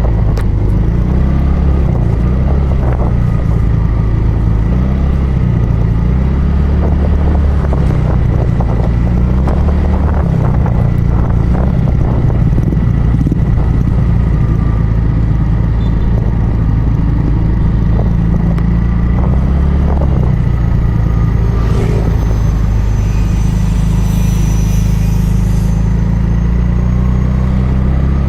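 Motorcycle riding along a road: steady engine and road noise under a heavy low rumble of wind on the microphone. A brief higher-pitched sound joins in about two-thirds of the way through.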